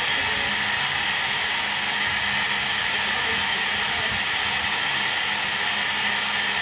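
LMS Jubilee class 4-6-0 steam locomotive 45690 standing at the platform, hissing steam steadily.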